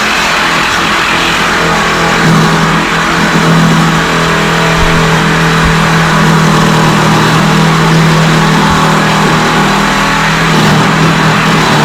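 Handheld power cutting tool running steadily under load as it cuts through a car body bolt: a high-speed motor hum with a gritty hiss of metal being cut, a little louder from about two seconds in.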